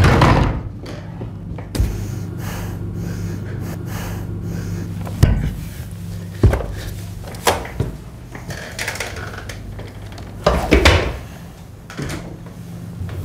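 Scattered sharp knocks and bumps of a chair and desk being knocked about, over a steady low hum.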